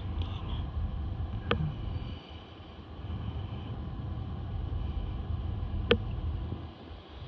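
Outdoor city street background: a steady low rumble that drops away briefly twice, with two sharp clicks about four seconds apart.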